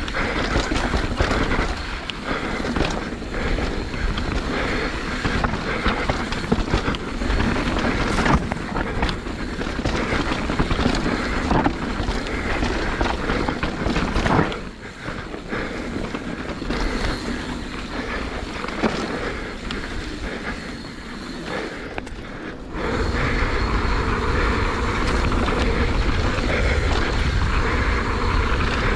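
Mountain bike riding down a rough dirt trail: continuous tyre rumble on dirt and stones with frequent knocks and rattles from the bike, and wind buffeting the microphone. It goes quieter for several seconds past the middle, then picks up again sharply.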